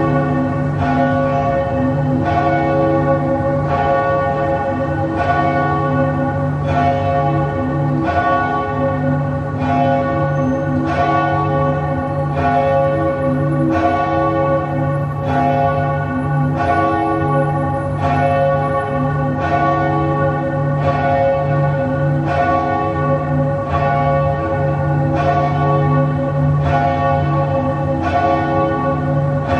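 Church bells tolling in a steady, repeated toll, about one stroke every second and a half, each stroke ringing on into the next.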